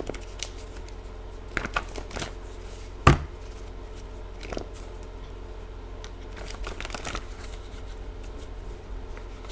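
A deck of tarot cards being handled and shuffled by hand: scattered soft rustles and clicks, with one sharp knock about three seconds in.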